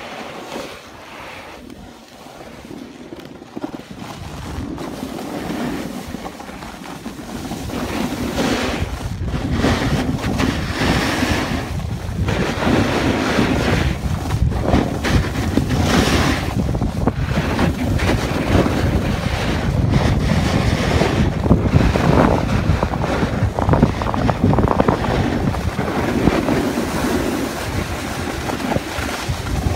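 Wind buffeting the microphone and a snowboard's edge scraping and hissing across the snow through carved turns, coming in repeated swells. It grows louder over the first several seconds.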